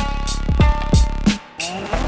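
Electronic background music with a hard beat: deep kick drums that drop in pitch, sharp snare-like hits and sustained synth tones.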